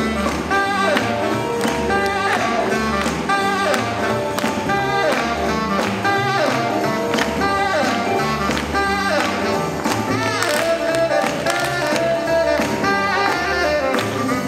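Swing jazz played by a band, with a steady dance beat.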